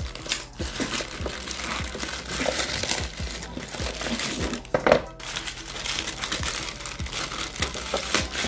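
Grey plastic mailer bag crinkling and rustling as it is torn open by hand and a cardboard box is pulled out, with a louder crackle about five seconds in.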